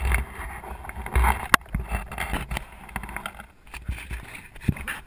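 An action camera being handled and moved: irregular knocks, rubbing and clicks against its housing, with a loud click about one and a half seconds in, over low rumble from wind buffeting the microphone.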